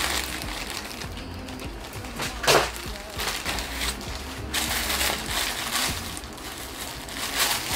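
Clear plastic bag crinkling and rustling in several bursts as a wig is pulled out of it, loudest about two and a half seconds in, with music playing underneath.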